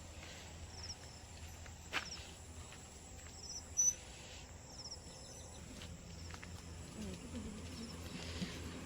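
Faint outdoor background with short, high insect-like chirps repeating about once a second over a low hum. There is a single click about two seconds in and a brief sharp high chirp near four seconds.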